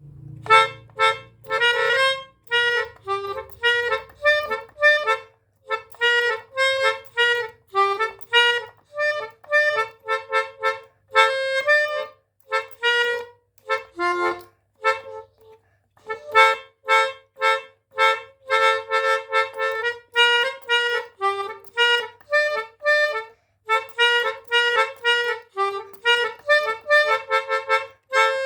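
Melodica playing a quick run of short, separate notes that mimic a "telolet" bus-horn tune, the melody of a Basuri multi-tone horn. The playing pauses briefly about halfway through, then carries on.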